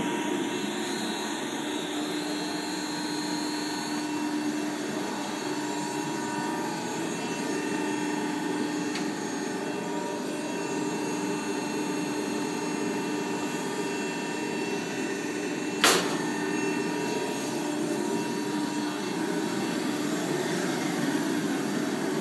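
Adira upstroking hydraulic press brake running with a steady hum from its pump motor, broken by one sharp click about sixteen seconds in.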